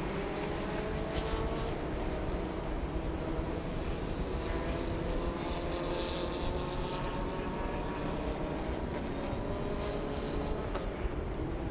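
Pack of Formula Renault single-seater race cars running together behind the safety car. Their mixed engine notes slowly rise in pitch as they gather speed.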